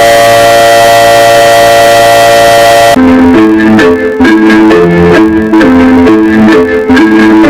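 A civil-defense siren holding a steady multi-tone wail with a hiss over it, cut off abruptly about three seconds in. Music with a melody of short notes follows.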